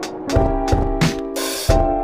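Background music: a steady drum beat with deep kick thumps and hi-hat ticks under held keyboard chords.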